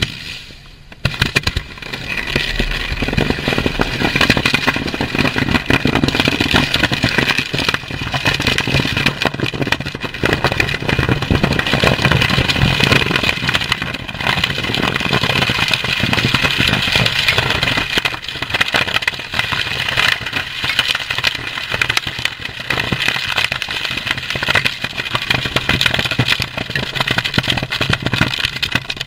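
A pile of unserviceable ammunition, including 20mm and 5.56mm cartridges, burning off in a disposal pit. It is a loud continuous rush of burning, dense with rapid pops and crackles as the rounds cook off, and it rises sharply about a second in.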